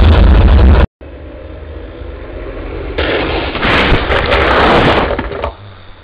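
Lo-fi cartoon explosion sound effects. A loud blast of noise with a heavy low rumble cuts off abruptly about a second in. A second blast then grows louder, peaks in the middle, and dies away near the end.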